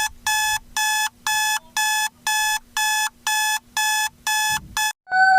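Emergency alert alarm tone: a single-pitched electronic beep repeating about twice a second. Near the end the beeping stops and a held electronic tone begins.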